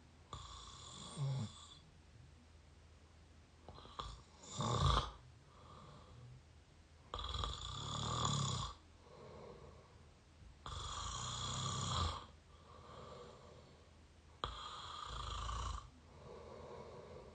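A person snoring through an open mouth, recorded close to the microphone: five loud snores come about every three and a half seconds, with quieter breaths between them.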